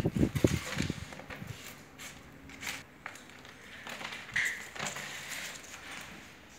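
Plastic laundry basket knocking and scraping on a tiled floor as cats play inside it, with a quick run of dull low knocks in the first second, then faint rustling. A brief high chirp about four seconds in.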